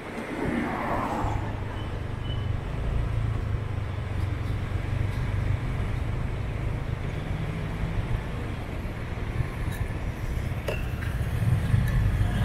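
Car driving through town traffic: a steady low engine and road hum that gets a little louder near the end. There is a brief rushing sound about a second in and a couple of light clicks near the end.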